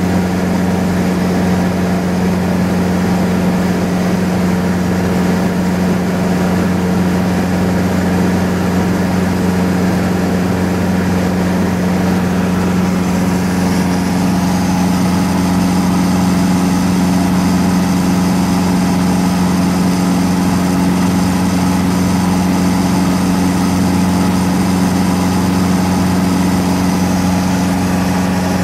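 Cessna 150's four-cylinder Continental O-200 engine and propeller heard from inside the cabin in cruise: a loud, steady drone with airflow hiss. The hiss grows a little about halfway through.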